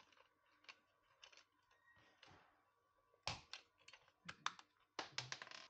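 Faint, irregular clicks and light taps of small metal hardware being handled on a solar-panel mounting bracket, as fingers work its wing-nut clamps. The clicks come sparsely at first, then in louder clusters in the second half.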